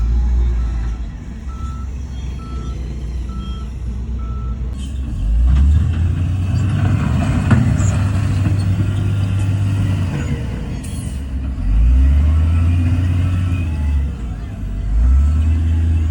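Heavy diesel earthmoving machinery running, its deep engine note swelling in surges several times. A reversing alarm beeps at an even pace for the first four or so seconds, then stops.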